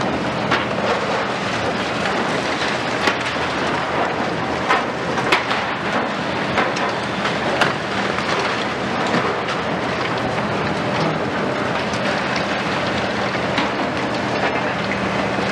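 Diesel engines of two high-reach demolition excavators, a Liebherr 974 and a Hitachi 870, running with a steady hum while their attachments break up a concrete building. Concrete crunches and rubble falls in frequent cracks and clatters, the loudest about 3, 5 and 7.5 seconds in.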